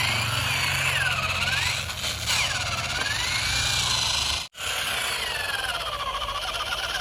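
A toy vehicle's high whine gliding slowly up and down in pitch over a steady hiss. It cuts out for an instant about four and a half seconds in, then resumes.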